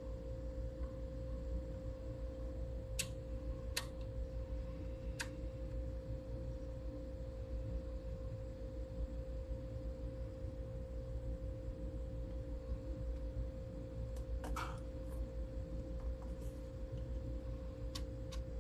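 Steady low kitchen hum with one constant tone, broken by a few sharp clinks of utensils against cookware: three spread over a few seconds early on, then a small cluster well into it and two more near the end.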